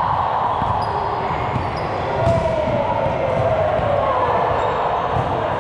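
Recreational league game sounds on an indoor court: a ball thudding on the floor and being struck, with short squeaks from players' shoes, one sharper impact a little over two seconds in, and a faint murmur of players' voices.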